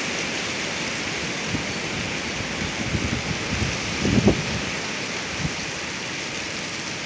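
Strong gusting wind in a windstorm: a steady rushing with irregular low buffeting on the microphone, heaviest about four seconds in.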